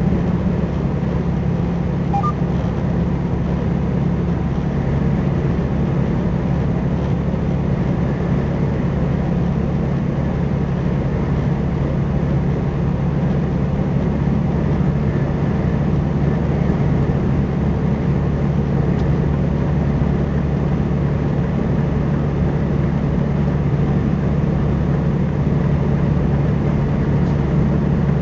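Semi truck's diesel engine and road noise heard from inside the cab: a steady, even drone with a low hum while cruising at highway speed.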